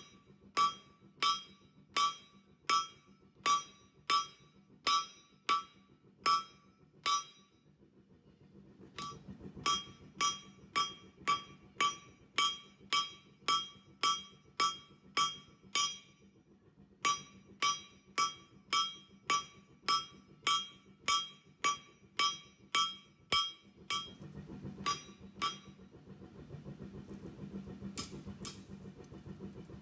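Hand hammer striking hot rebar steel on an anvil, flattening an arrowhead into a broadhead: steady blows about two a second, each with a bright ring, in runs broken by short pauses. Near the end come a few scattered blows over a low steady hum.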